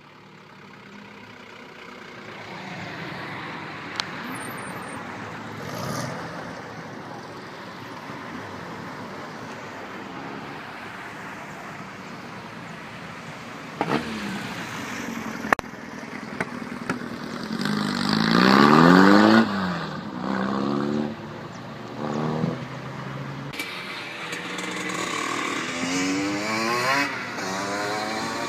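Classic cars driving past one after another with engines running. The loudest passes about two-thirds of the way through, its engine note rising then falling. Another car accelerates with a rising note near the end, and there are a few sharp clicks or pops in between.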